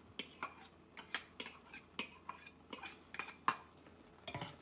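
A slotted steel spoon scraping puréed tomato out of a small bowl and then stirring it into a metal pan: a string of irregular clinks and scrapes, the sharpest about three and a half seconds in.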